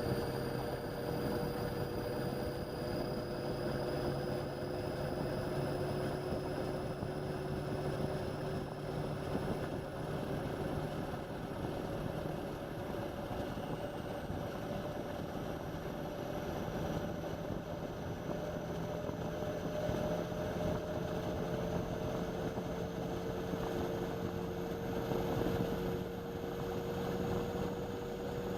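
Indesit washing machine running, its drum motor giving a steady whine that rises slowly in pitch over a constant rushing hum.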